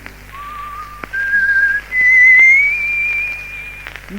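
Whistling on an old 78 rpm record: three clear notes stepping upward, the last and loudest held for about two seconds and rising slightly, with a few surface clicks from the disc.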